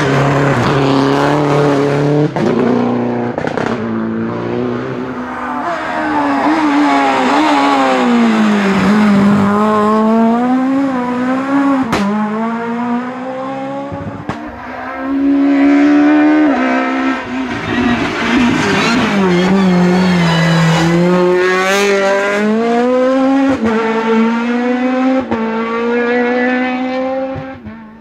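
Rally car engines revving hard through the gears, the first a Citroën DS3 passing close. The pitch climbs and drops again and again with each upshift and lift, with a sharp click about twelve seconds in, and the sound fades right at the end.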